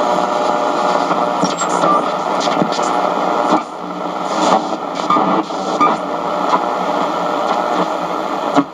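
Radio receiver static and hiss from the speaker of a Radio Shack 12-795 multiband receiver as its tuning knob is turned between stations. Short faint whistles and blips are heard as signals are passed over.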